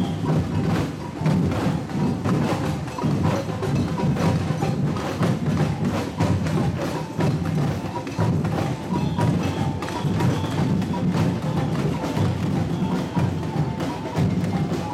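Samba percussion band playing a fast rhythm: deep, pulsing drums under a quick pattern of sharp, clacking strikes.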